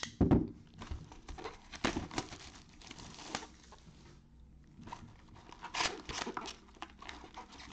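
Cardboard trading-card hobby box handled with gloved hands: a knock just at the start, then scattered taps, scrapes and rustling as the box is turned over and its lid pulled open.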